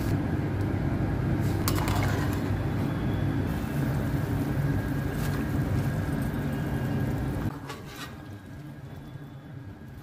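A large pot of chicken curry with water boiling on a stove, a steady bubbling rush with a few light clicks of a metal spoon against the pot. About seven and a half seconds in, the sound drops suddenly to a quieter simmer.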